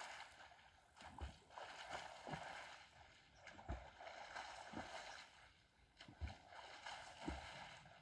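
Faint lake water at the shore: a light, steady wash with soft low thumps about once a second.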